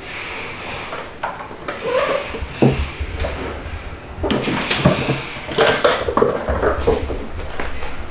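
Irregular knocks, bumps and scuffs as kittens scramble around and against an upturned plastic storage bin on a wooden floor.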